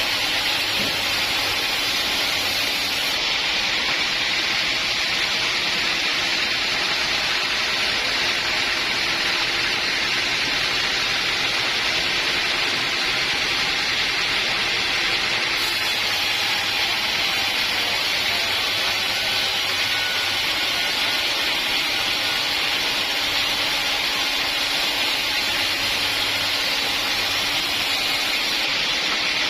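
Sawmill saw running through timber: a steady, unbroken hiss with a faint low hum beneath.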